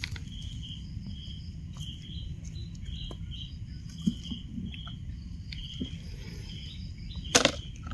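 A high, short chirping call repeats about twice a second over a steady low rumble, and a sharp knock sounds near the end.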